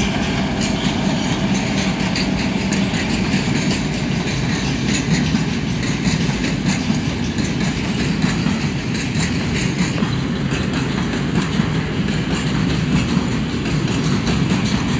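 Freight train of cement hopper wagons rolling past close by behind an M62M diesel locomotive: a steady, loud rolling noise of steel wheels on the rails.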